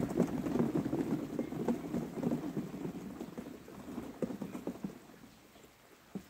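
Cherry tomatoes poured from a plastic bucket into a cardboard box: a dense patter of small fruit landing on the cardboard and on each other. It is heaviest at the start and thins out over about five seconds as the bucket empties.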